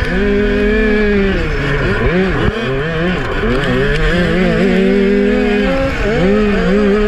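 A 200cc single-cylinder four-stroke kart engine running at racing speed. Its revs drop and climb back up several times as the throttle is lifted and reapplied through the corners.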